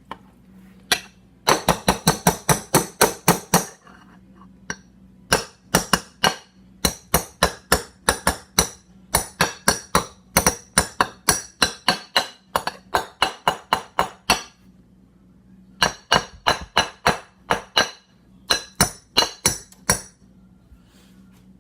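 A kitchen utensil drummed against a bowl to make a beat: sharp clinking knocks in quick rhythmic runs with short pauses between them.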